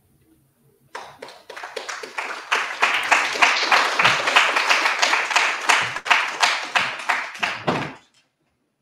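Audience applauding, a dense run of hand claps that starts about a second in and dies away near the end.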